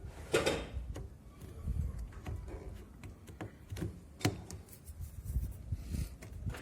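Scattered light clicks and knocks, with a short scraping swish about half a second in, from washing-machine parts being handled during reassembly.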